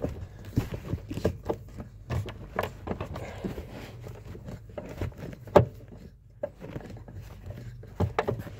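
A hand screwdriver turning a screw into a plastic interior trim panel: irregular clicks and creaks, with a sharper knock about five and a half seconds in.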